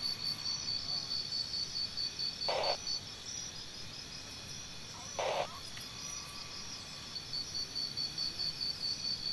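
Insects chirping in a steady, high-pitched pulsing trill of about three to four chirps a second, with two brief louder sounds about two and a half and five seconds in.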